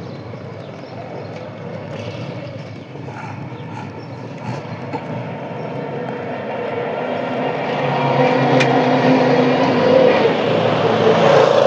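Small motor vehicle engine running steadily and growing louder through the second half, as a red motorized tricycle cab moves along the street.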